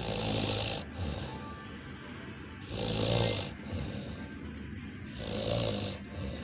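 Person snoring heavily in deep sleep, a pig-like snore: three snores about two and a half seconds apart, each lasting under a second.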